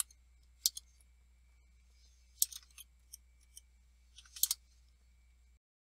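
Computer keyboard keys clicking in scattered bursts as commands are typed, over a faint steady low hum; the audio cuts off just before the end.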